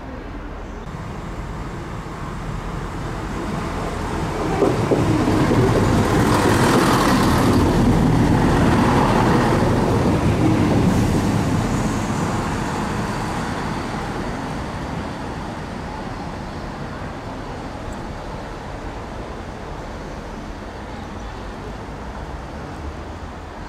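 Class 170 Turbostar diesel multiple unit pulling away, its underfloor diesel engines and wheels on the rails building to a loud rumble, then fading as it moves off. There is a single sharp knock as the sound builds.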